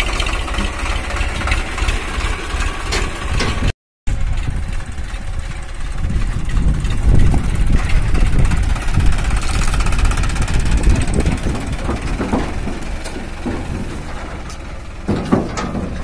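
Eicher 551 tractor's three-cylinder diesel engine running under load while pulling a loaded trolley over soft ground. The sound cuts out for a moment just under four seconds in. It then comes back louder and heavier, labouring from about six to ten seconds in before easing.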